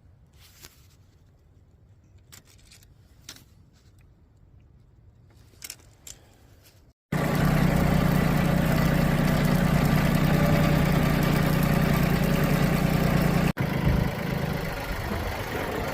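Faint clicks, then an abrupt cut about seven seconds in to a motor vehicle engine running steadily at idle with a low hum. It drops out for an instant near the end and carries on a little quieter.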